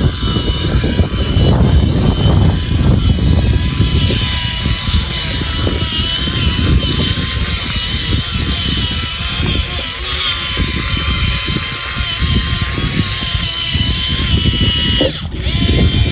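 Radio-controlled model vehicle running, its electric motor and gearbox giving a steady whine over a low rumble. The sound breaks off briefly about fifteen seconds in and then resumes.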